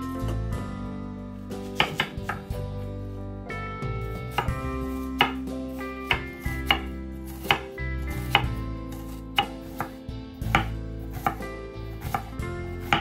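Knife chopping on a cutting board in separate strokes, roughly one a second, over soft background music.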